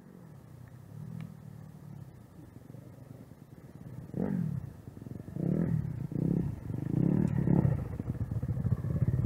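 Dirt bikes approaching: a faint engine drone at first, then from about four seconds in their engines rev in short bursts that rise and fall in pitch, growing louder as they come close.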